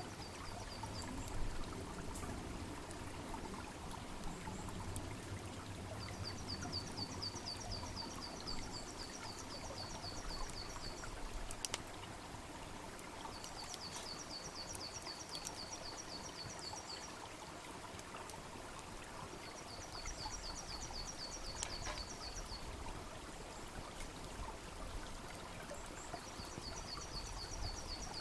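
Small stream babbling steadily alongside a wood fire, with a few sharp crackles and pops from the burning wood. A high, rapid trill of evenly repeated notes, about five a second, sounds four times for several seconds each.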